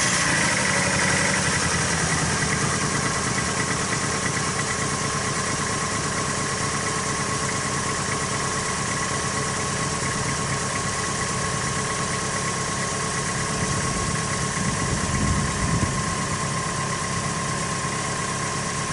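Minivan engine idling just after starting, a little louder in the first seconds, then settling. It runs with the third cylinder misfiring, as the owner notes, after the van has stood unused for a month and a half.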